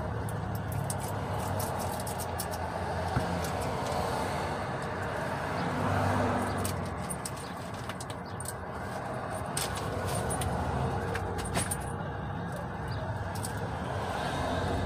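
City street noise: a steady hum of traffic with a few faint clicks.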